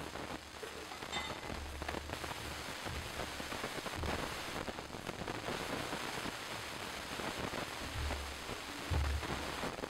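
Strawberry-cherry jam simmering in a cast iron pot, giving a steady crackly bubbling hiss as the sugar comes up to temperature. A faint clink about a second in.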